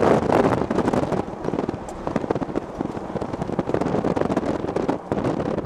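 Precipitation pelting the outside of a storm chasers' vehicle: a dense, irregular rattle of small hard impacts.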